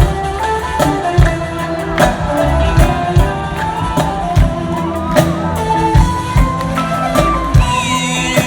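Live band playing an instrumental passage of an Arabic pop song: a melodic lead line over bass, with drum hits on a steady beat.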